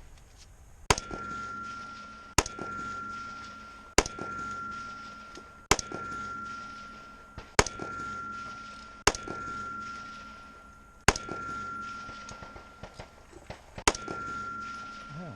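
AR-15 carbine firing eight deliberate single shots, spaced about one and a half to three seconds apart. Each shot is followed by a high ringing tone that fades before the next.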